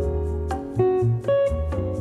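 Instrumental background music: a melody of held notes over a bass line, with a steady light beat.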